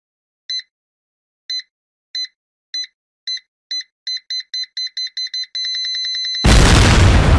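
Digital time bomb countdown, a sound effect: short high-pitched electronic beeps come faster and faster, merge into one continuous tone about five and a half seconds in, and a loud explosion goes off about a second later.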